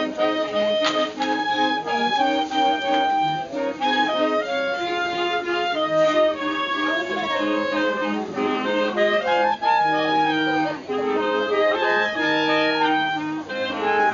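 Clarinet ensemble, including a bass clarinet, playing a tune in several parts, with held notes that move together in steps.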